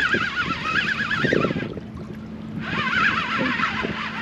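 Fishing reel being cranked to wind in a hooked fish: a whine that wavers up and down in pitch with the cranking, in two spells with a short pause near the middle, over a faint steady low hum.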